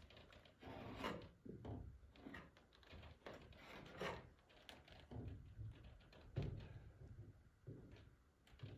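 Faint, irregular scraping and rubbing strokes of a brush working liquid roof-patch sealant onto the greenhouse roof seams around a fan.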